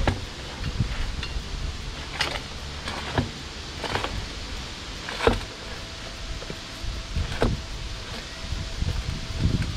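A water-flushing sludge bailer worked up and down inside a plastic well casing: a run of quick sliding strokes that drop in pitch, unevenly spaced about one a second, the loudest about halfway through.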